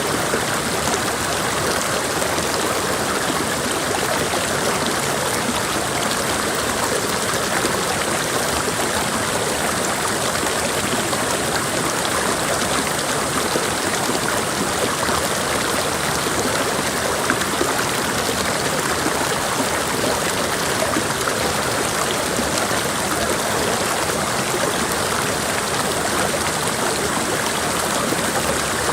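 Mountain creek water rushing and splashing over rocks, a steady, dense flow without change.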